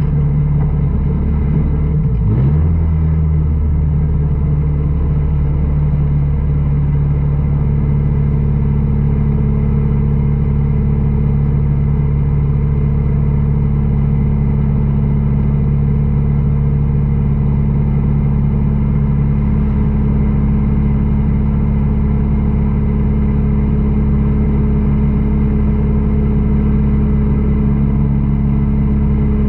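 Dirt track race car's engine idling steadily, heard from inside the cockpit, with a brief dip and recovery in engine pitch about two seconds in.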